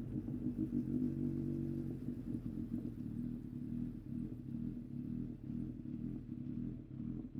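Yamaha XJR1300's air-cooled inline-four engine running with a steady, even note.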